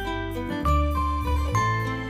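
Background music: a light instrumental tune with plucked strings and a steady bass line.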